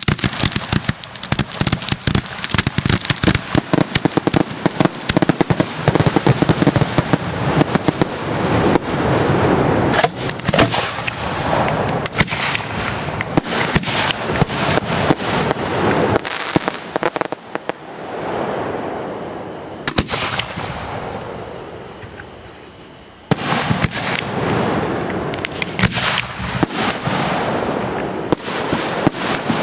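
Aerial fireworks display: a rapid barrage of shell bursts and sharp cracks. The bangs ease off for a few seconds about two-thirds of the way through, then start up densely again.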